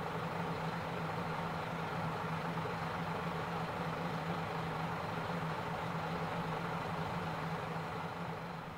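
Diesel railcar's engine idling steadily at a standstill, a constant low hum with no change in pace, beginning to fade out near the end.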